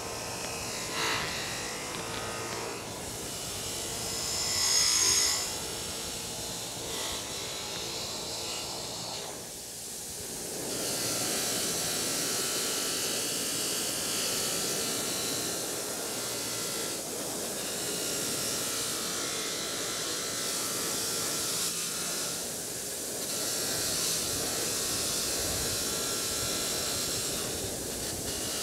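Bench-mounted wire wheel running, with the rusty steel head of an Estwing claw hammer held against it, the wire bristles scrubbing rust off with a steady hiss. The scrubbing grows heavier and louder about ten seconds in, as the head is pressed harder to the wheel.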